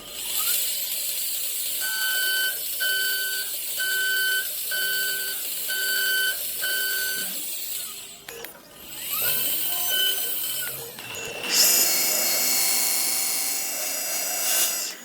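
An electronic beeper sounds six times at an even pace of about one beep a second, then three more after a short pause, over the steady high hiss of running machinery. Near the end a louder machine noise takes over.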